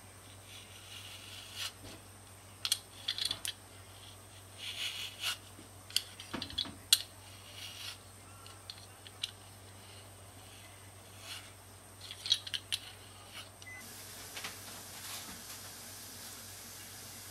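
Y-shaped vegetable peeler scraping the skin off a kiwi fruit in short, irregular strokes, with light clicks and scrapes.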